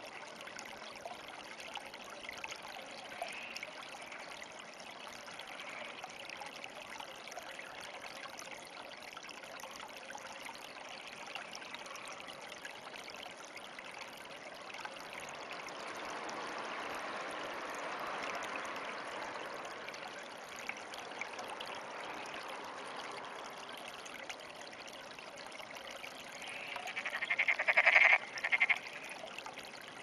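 A frog calling close by: one call made of rapid pulses that swells over about two seconds near the end and breaks off, followed by a short second burst. Before it there is only a steady background hiss.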